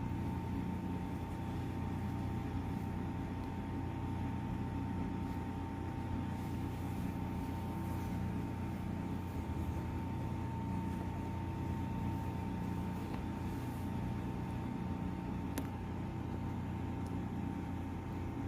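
A steady machine hum with a constant thin whine running through it, unchanging throughout.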